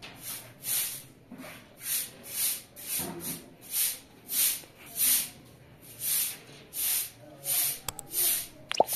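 A short straw hand broom sweeping a bare concrete floor in brisk, regular swishes, about two a second. Near the end there is a short rising electronic tone.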